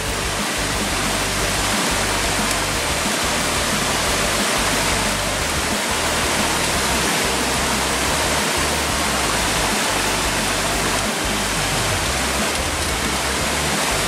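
Steady rush of water running over the boulders of a rocky mountain stream, with music beneath it.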